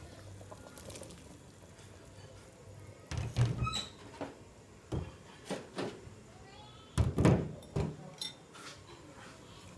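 Kitchenware handled on a steel counter: a plastic colander and small bowls being set down, heard as a handful of separate knocks and clatters. The loudest come about three seconds in and about seven seconds in.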